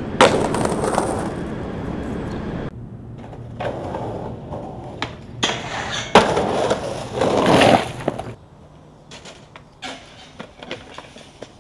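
Raw skateboarding sounds from several street clips: sharp board pops and landings, the board scraping along metal handrails, and wheels rolling on pavement. The loudest impacts come just after the start, about six seconds in and around seven and a half seconds. The last few seconds are quieter, with small clicks.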